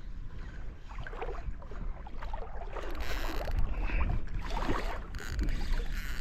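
Shallow seawater sloshing and splashing, in several short swishes, over a steady low rumble of wind on the microphone.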